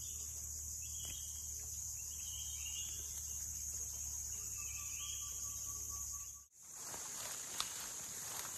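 Steady high-pitched chorus of insects by a jungle river, with short rising chirps about once a second and a faint low hum underneath. The sound breaks off abruptly about six and a half seconds in, and a noisier outdoor background with a single click follows.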